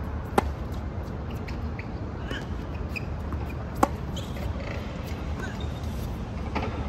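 Tennis rally on a hard court: two sharp racket-on-ball hits close by, about three and a half seconds apart, with fainter hits and ball bounces from the far end between them. Faint high chirps and a steady low rumble underneath.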